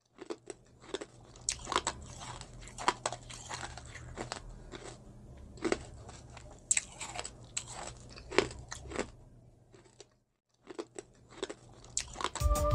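Close-miked eating sounds: irregular crunchy bites and chewing over a faint low hum, with a short pause about ten seconds in. Music starts right at the end.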